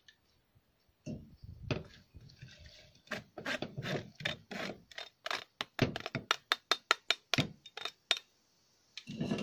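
Metal spoon scraping and knocking against a wire-mesh strainer held over a clay mortar, working boiled ingredients out into the mortar. It is a rapid run of short clacks and scrapes, about three or four a second, starting about a second in and stopping shortly before the end.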